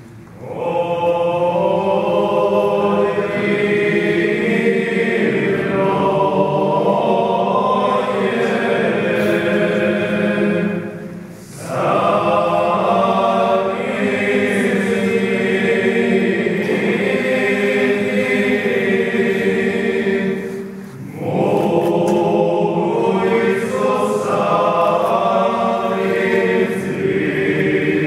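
Choir singing a church chant in long, sustained phrases, with two short breaks between phrases, about 11 and 21 seconds in.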